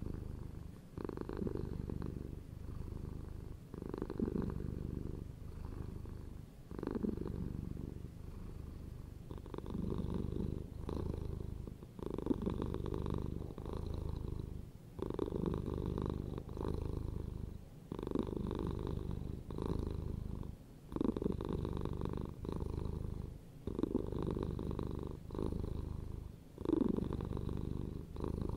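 Domestic cat purring close to the microphone, a low buzz that swells and breaks with each breath, about every second and a half.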